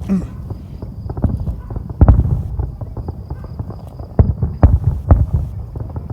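Fireworks shells bursting: a deep boom about two seconds in, then a quick run of four more bangs around four to five seconds.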